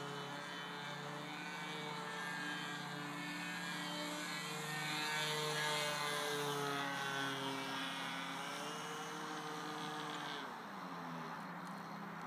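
Radio-controlled model aeroplane's engine and propeller droning in flight. It grows louder toward the middle as the plane passes closer, then dips in pitch near the end and climbs back.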